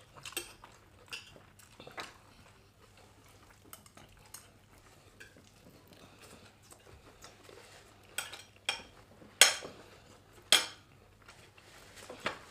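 Metal spoons clinking and scraping against plates of food in scattered, separate clinks, with two louder clinks about a second apart late on.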